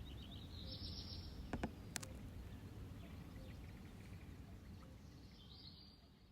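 Faint outdoor ambience, a steady low rumble, with a small bird giving a short high call about a second in and again near the end. Two sharp clicks come between 1.5 and 2 seconds in.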